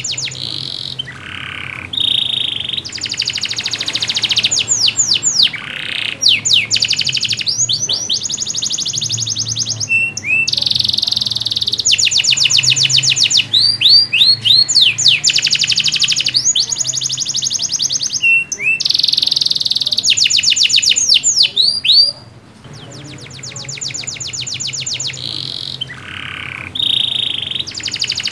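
Domestic canary in full song: a long run of fast rattling trills and quick rising sweeps, one phrase straight after another with only brief breaks.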